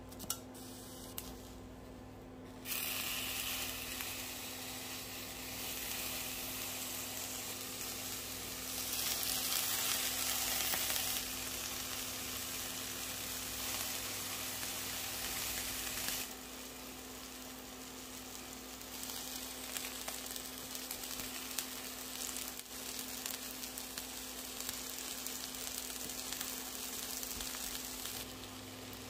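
Eggplant slices stuffed with minced chicken sizzling as they fry in a nonstick pan. The sizzle comes in about three seconds in after a quiet start with a couple of light clicks. It is loudest around ten seconds in and drops lower after about sixteen seconds.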